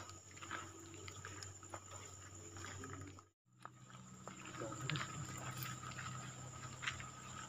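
Footsteps on dry weeds and gravel, with scattered short clicks and rustles, over a steady high-pitched buzz and a low hum. The sound drops out for a moment a little past three seconds in.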